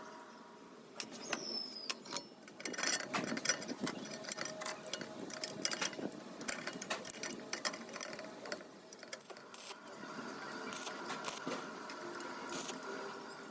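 Irregular clicking and light knocking, as of small parts or hand tools being handled, over a few faint steady tones.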